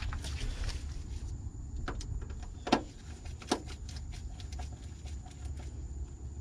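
Small mounting screws being threaded by gloved hands into a floor pass-through fitting ring: light metal clicks and handling taps, two sharper clicks around the middle, over a steady low hum.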